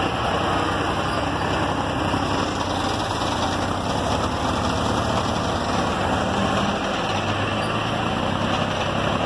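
Forklift engine running steadily while the truck carries a bale; its note changes pitch about seven seconds in.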